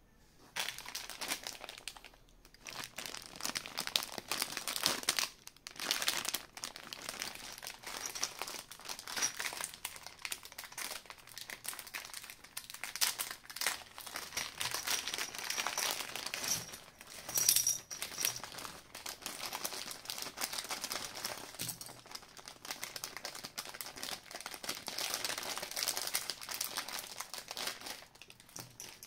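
Clear plastic zip bag crinkling and rustling as hands open it and pull out the phone repair tools inside.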